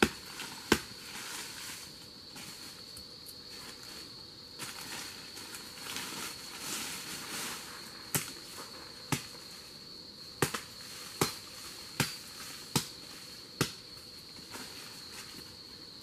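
Sharp knocks of a tool hacking pieces off a termite mound: one near the start, then a run of about eight, roughly one a second, from about eight seconds in. A steady high-pitched insect drone runs underneath.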